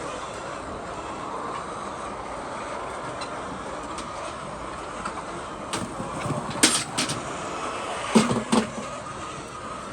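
A steady mechanical rumble, with a short cluster of sharp knocks in the second half.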